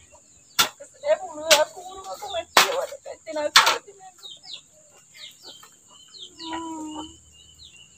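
Four sharp cracks in the first half, then a run of short, falling bird chirps and one short held call near the end, all over a steady high insect drone.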